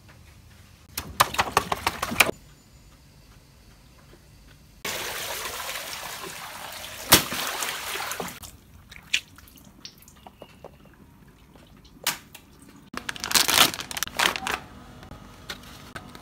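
Water rushing out of a burst giant water balloon: a sudden gush about five seconds in that lasts some three seconds, with one sharp crack partway through. Brief crackling near the start, and clear plastic packaging crinkling near the end.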